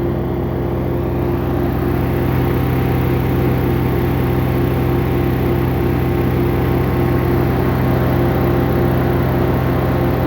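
Wood chipper running at a steady speed, an even mechanical hum that holds one pitch throughout.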